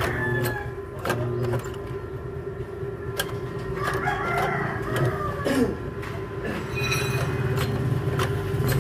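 A lathe's electric motor humming steadily while the drum switch's lever linkage is worked by hand, with scattered clicks and knocks. A rooster crows about four seconds in.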